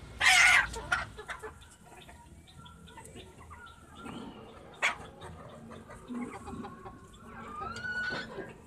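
A flock of Desi golden hens clucking and calling, with a loud harsh burst near the start, a sharp knock about five seconds in, and a drawn-out rising hen call near the end.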